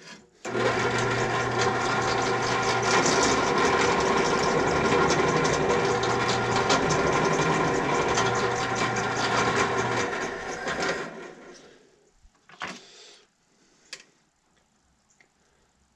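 Benchtop drill press switched on and running a 45-degree countersink into the touch hole of a steel flintlock barrel: a steady motor hum for about ten seconds, then switched off and winding down. A few light clicks follow near the end.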